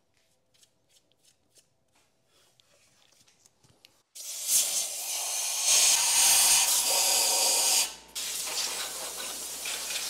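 Compressed-air blow gun blowing machining chips off an engine block. A few faint clicks, then about four seconds in a loud hissing air blast starts suddenly. It breaks off briefly about two-thirds of the way through and starts again.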